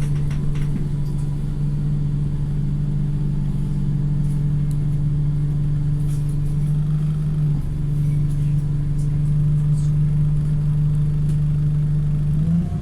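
Wright StreetLite single-deck bus engine running steadily: a constant low drone with a slight shift in pitch about seven and a half seconds in.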